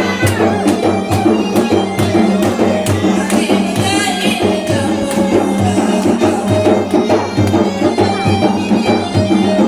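Traditional Malay gendang music: hand drums beaten in a steady, even rhythm with a melodic line carried over them.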